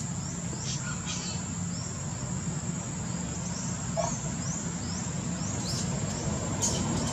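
Outdoor ambience: birds chirping in short rising notes, in runs about a second in and again near the end, over a steady high insect whine and a low background rumble.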